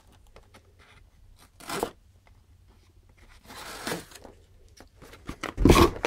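Utility knife slitting the packing tape on a cardboard carton in a few short scraping strokes, with a thump of the carton being handled near the end.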